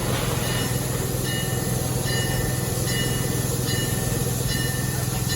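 Serengeti Express train standing at the station with its locomotive running, a steady low hum. Faint short high-pitched tones repeat over it.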